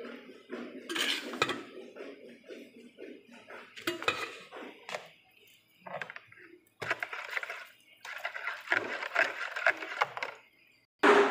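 A wire whisk stirring a thin milky sauce in a pan, clinking and scraping against the pan in irregular strokes that become quicker and more continuous in the last few seconds. A short loud bump near the end.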